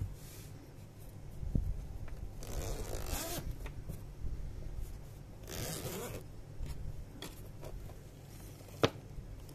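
Zipper on a padded, hard-shell camera carrying case being pulled open in two long runs, with handling rustle from the case. One sharp knock near the end.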